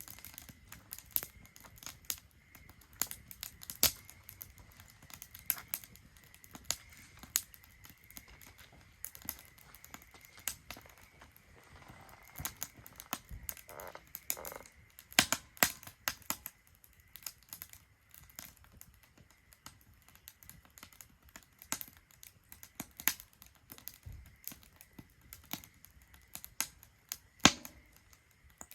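Wood fire crackling in a Solo Stove Ranger fire pit, with irregular sharp pops and snaps, a few louder ones scattered through.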